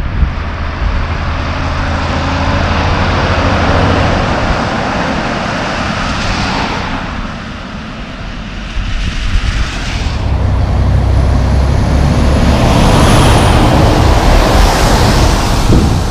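Heavy diesel trucks driving past on a wet road, engine drone and tyre hiss on the wet pavement. A loaded logging truck goes by first; the sound dips, then from about ten seconds in a tandem dump truck with a pup trailer passes close and louder.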